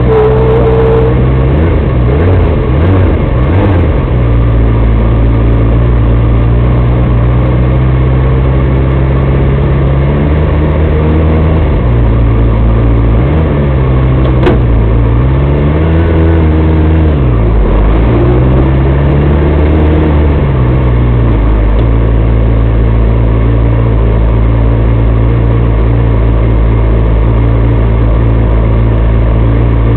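A small off-road buggy's engine, heard from on board, running at a steady idle. It gives a few quick throttle blips early on and several gentle revs that rise and fall in pitch through the middle. A single sharp click comes about halfway through.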